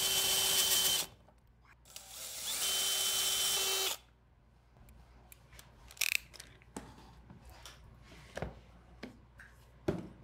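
Cordless drill spinning a stepped pocket-hole bit into walnut held in a pocket-hole jig: a steady whine that stops about a second in, then a second run from about two to four seconds. After that, a few scattered light knocks.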